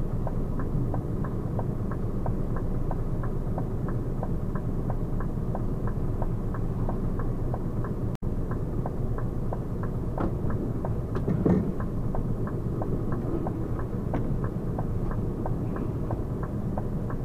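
Stationary truck's diesel engine idling, heard from the cab, with an even ticking about three times a second. A louder knock comes about eleven and a half seconds in.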